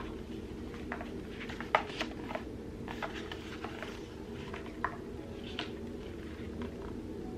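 Pages of a paper diary being turned and handled: a scatter of soft paper flicks and taps, the sharpest a little under two seconds in.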